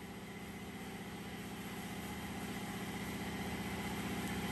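A machine running steadily in the background, with a fast even pulse, slowly growing louder and cutting off abruptly at the end.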